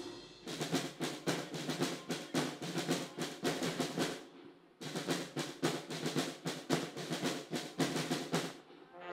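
Military band snare drums playing a fast marching cadence between brass passages, in two phrases of about four seconds each with a brief break in the middle.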